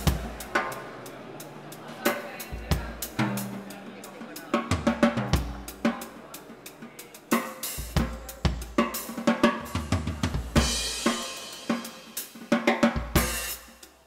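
Drum kit played freely, with kick drum, snare and hi-hat strokes in an uneven pattern and a cymbal wash about eleven seconds in.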